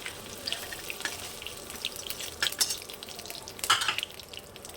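Paneer cubes frying in hot oil in a kadhai, crackling and sizzling, with a spoon stirring and lifting them out. There is a brief louder burst about three and a half seconds in.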